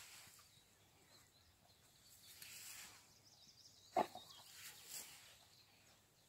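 Faint outdoor quiet with faint bird calls, broken about four seconds in by one short, sharp sound that is much louder than the rest.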